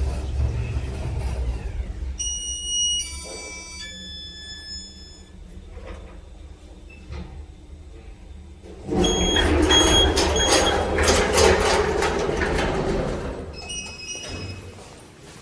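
KMZ passenger lift running in its shaft with a low rumble, followed by a few steady tones. About nine seconds in, its automatic sliding doors clatter and rattle loudly for several seconds.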